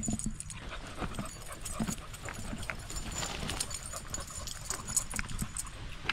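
Dogs panting, with irregular footsteps and paws scuffing and clicking on a dirt and gravel trail.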